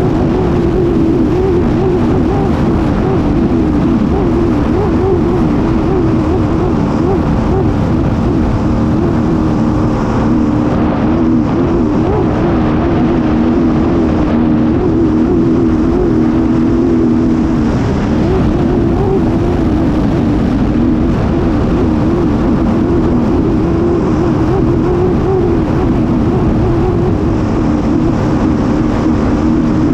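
Racing hydroplane's engine running hard at speed, heard from the cockpit, its pitch wavering with the chop, over a steady rush of wind and water spray.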